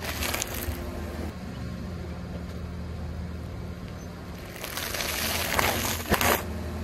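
A car's engine running at a low idle as the tyre creeps forward. About four and a half seconds in, crinkling and crunching as the tyre rolls onto the plastic food packets and crushes their contents, with sharp cracks near the end.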